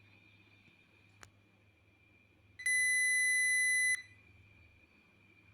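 Multimeter continuity beeper sounding once, a steady high beep of a little over a second, meaning the probes are across a closed circuit. There is a faint click about a second before it.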